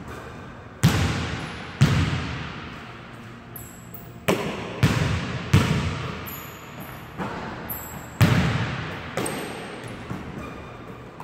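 A basketball banging off the hoop and bouncing on a hardwood gym court: about seven sharp bangs a second or so apart in clusters, each ringing on in the hall's long echo.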